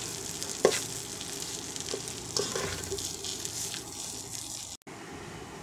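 Polao rice sizzling as it fries in oil in a pot. A metal spoon stirs it and scrapes the pan a few times. The sound drops out briefly near the end and comes back as a quieter sizzle.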